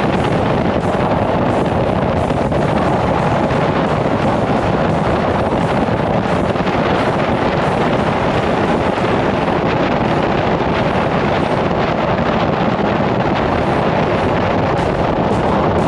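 Steady, loud wind rushing over the microphone of a camera on a moving Honda Gold Wing GL1800 motorcycle at road speed, with road noise underneath.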